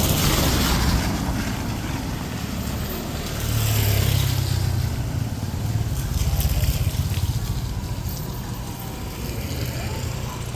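Road vehicles passing on a wet street, their engine rumble swelling about a second in and again in the middle, over a steady hiss of rain.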